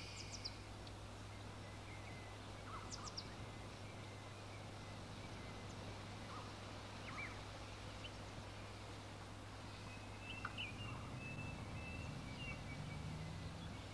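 Quiet outdoor ambience: scattered short bird chirps over a steady low hum.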